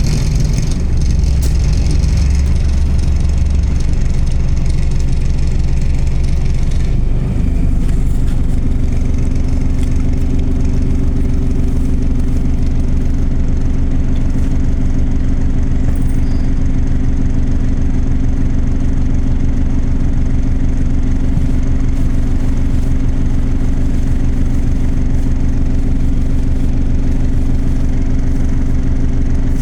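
Bus engine running steadily, heard from on board. About seven seconds in, a high hiss stops and the engine note changes, then holds steady.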